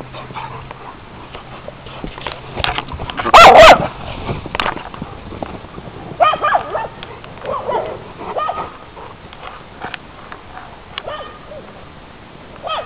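Dogs barking now and then, the loudest bark about three and a half seconds in, followed by several shorter, quieter barks.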